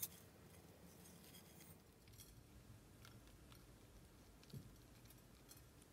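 Near silence with faint, scattered crackling ticks of salt and black pepper being sprinkled over avocado toast.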